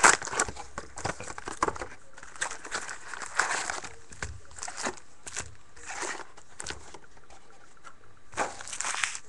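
Hands opening a box of hockey card packs: irregular crinkling and tearing of pack wrappers and rustling cardboard, with scattered clicks and a louder burst at the start and another near the end.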